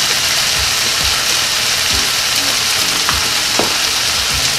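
Stir-fry of beef, eggplant and onion sizzling steadily in a frying pan over a gas burner, with a few faint knocks.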